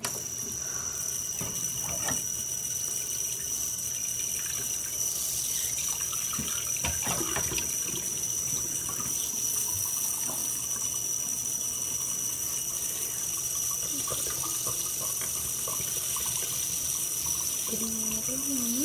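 Bathroom sink tap running steadily into the basin, turned on abruptly at the start, with a thin high-pitched tone riding on the rush of water. A few light knocks of things being handled at the counter.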